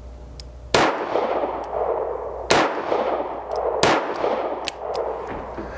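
Three shots from a 2-inch-barrel Taurus 942M .22 Magnum revolver fired double action, the first about a second in and the others roughly 1.8 and 1.3 seconds apart, each trailing off in a decaying echo.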